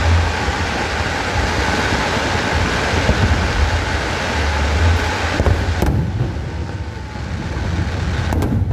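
A fireworks display: a continuous dense rumble and crackle, with sharp bangs about five and six seconds in and a quick pair near the end.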